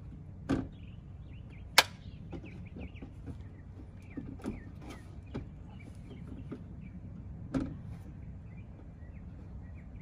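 Scattered knocks and clicks from hands working a Tesla Model S door and its handle assembly: a sharp click a little under two seconds in, smaller ticks around four to five seconds, and another knock near the end. Birds chirp faintly in the background.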